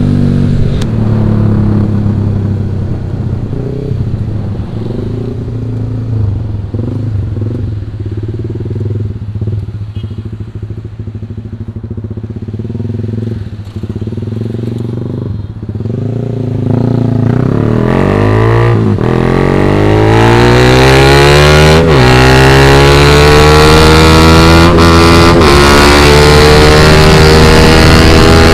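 Honda Sonic 150R's single-cylinder 150 cc engine through an aftermarket Proliner exhaust, running at low, fairly steady revs. From about two-thirds of the way in it accelerates hard through the gears: the engine note climbs in several rising sweeps, each broken by a shift, and gets louder.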